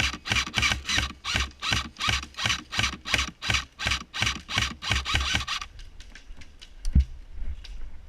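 Running footsteps crunching through dry ground cover, about three or four strides a second with gear jostling on the wearer. They stop about five and a half seconds in, and a single thump follows near the end.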